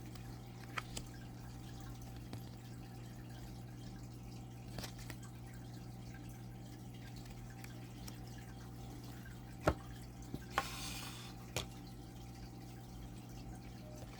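Thick oracle cards being handled and laid down: a few scattered light clicks and taps, with one short sliding rustle about eleven seconds in, over a steady low hum.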